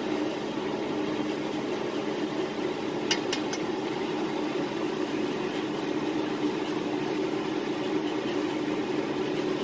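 A steady low hum, with three quick light clicks about three seconds in.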